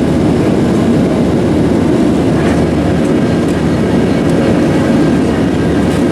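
Steady low rumble of a Boeing 737's engines and rushing air, heard inside the passenger cabin.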